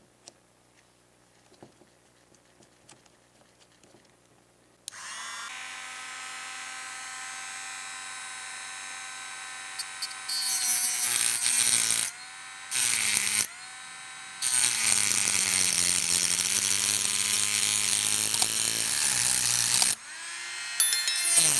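Small handheld rotary tool with a thin cutting disc: a few faint clicks as the disc is fitted, then the motor starts about five seconds in with a steady whine. From about ten seconds in, the disc cuts into a small metal part in several passes with short breaks, a loud grinding hiss over the whine, the motor's pitch sagging under load and rising again.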